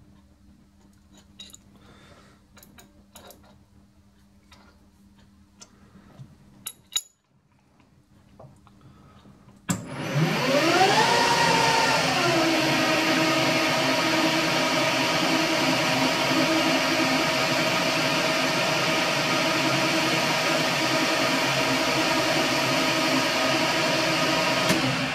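Metal lathe: a few light clicks and taps of the tooling being set, then about ten seconds in the lathe starts with a rising whine that settles to a steady pitch, runs steadily with a hiss, and winds down just before the end.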